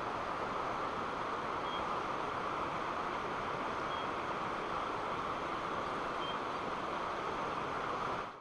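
Steady rushing of a river in the valley below, an even roar that does not change, fading out right at the end.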